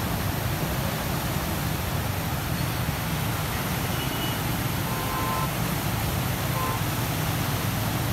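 Fast, muddy floodwater rushing and churning over open ground, a steady low rushing noise.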